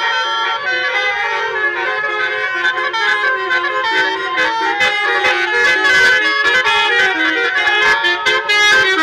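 Bus's Basuri 'telolet' musical horn playing a fast tune, its reedy notes stepping up and down, with sharp beats joining in from about four seconds in.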